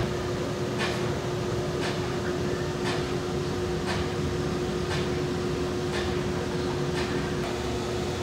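Cooking oil pouring in a steady stream into a stainless steel commercial deep fryer, over a steady mechanical hum with one held tone. A light tick comes about once a second.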